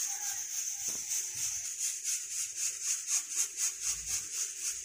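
Aluminium pressure cooker hissing steam at its vent weight, a steady hiss that pulses several times a second as the pressure builds just before the whistle.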